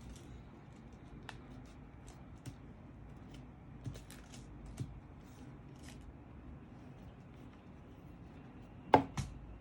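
Paper being handled and pressed into place as pieces are glued on: soft rustles and light taps, with a sharp knock and a smaller one near the end.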